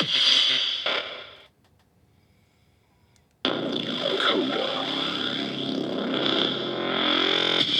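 Toy lightsaber's electronic hum and sound effects, distorted and loud. It dies away about a second and a half in and switches back on suddenly about two seconds later, with sliding pitch sweeps in the hum.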